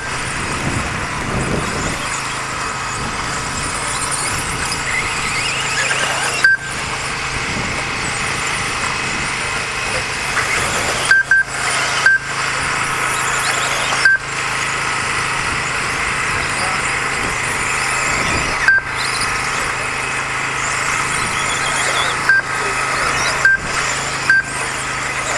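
Several 2wd electric RC off-road buggies racing together, their motors whining and changing pitch as they speed up and slow down. A short electronic beep sounds about eight times, unevenly spaced: the lap-timing system as cars cross the line.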